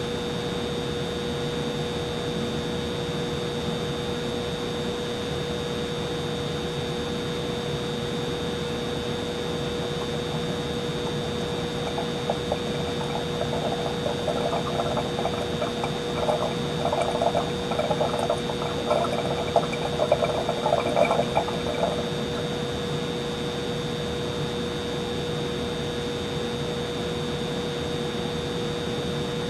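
Humidifier running with a steady hum and a thin high tone, with water gurgling and trickling for about ten seconds in the middle.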